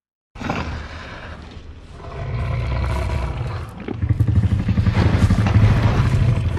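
Layered T. rex roar sound effect, mixed from film and game monster roars. It starts suddenly after a brief silence, swells about two seconds in, and grows louder from about four seconds with a deep, rapidly pulsing rumble underneath.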